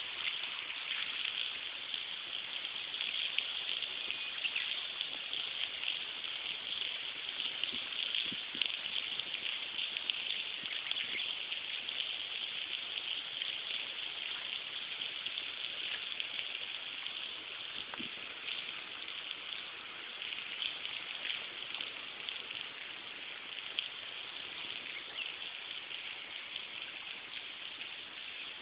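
Steady hiss of water outdoors, with faint scattered ticks through it.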